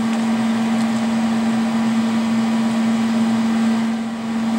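Steady machine hum: one constant low tone over an even hiss, from running shop equipment.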